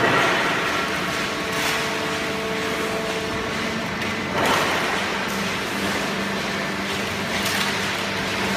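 Hydraulic cardboard baler's power unit running with a steady hum. Its tone drops to a lower pitch about three and a half seconds in, with several louder rushing surges along the way.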